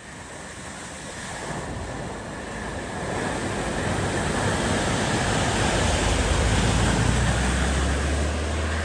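A vehicle pushing through deep floodwater: a rushing wash of water that swells over the first few seconds, with a low engine hum growing in underneath from about halfway through.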